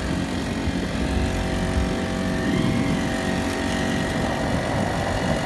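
Honda GX35 35cc four-stroke engine of a small kayak outboard motor running hard at about 80% throttle, a steady drone whose pitch lifts slightly about halfway through.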